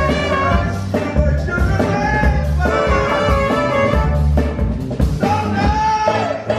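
Live band music with a horn section of saxophone and trumpet, drums and electric guitar, and a man singing lead into a microphone.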